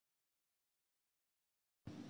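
Silence: the sound track is blank, with only faint background hiss coming back near the end.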